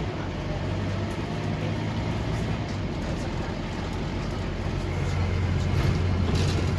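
Scania OmniLink single-deck bus's diesel engine and drivetrain running under way, heard from inside the passenger saloon as a steady low drone that grows louder about five seconds in. A brief hiss comes near the end.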